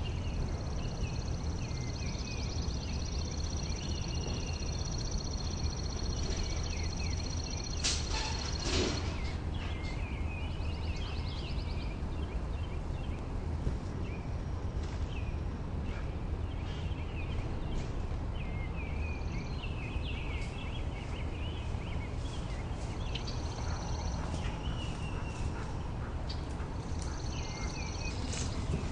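Pond ambience: many short, high bird chirps and calls over a steady low rumble. A thin, steady high whine runs through the first eight seconds and comes back near the end, and there is a brief crackling knock about eight seconds in.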